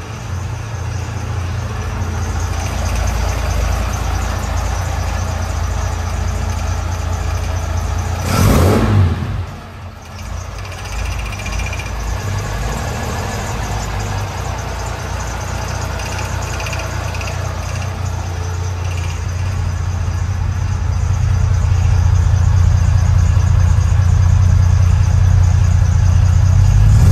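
1968 Jaguar XKE's 4.2-litre inline-six with triple Weber carburettors idling after a cold start, with one short rev about eight seconds in. The idle grows louder over the last third.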